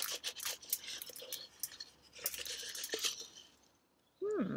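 Paper rustling and scraping against the inside of a metal coffee can as a rolled, paint-wet sheet is worked out of it, with small clicks and taps. Near the end there is a short falling hum of a voice.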